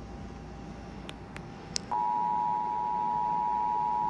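Emergency Alert System attention signal: a steady two-tone alert tone that starts about two seconds in and holds at an even level, marking the start of a new emergency alert. A few short faint clicks come just before it.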